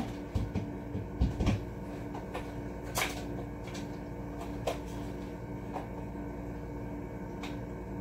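Objects handled on a tabletop: a few low knocks in the first second and a half, then single sharp clicks, the loudest about three seconds in, over a steady hum.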